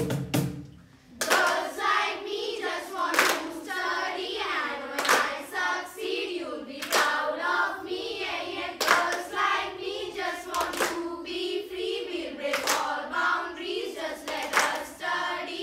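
A group of girls singing a song together in unison, with a sharp clap about every two seconds keeping time.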